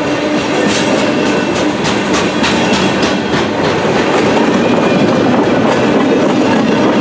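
Freight cars of a mixed freight train (boxcars and covered hoppers) rolling past close by. Steel wheels clatter over the rail joints in a loud, steady clickety-clack over the continuous rumble of the train.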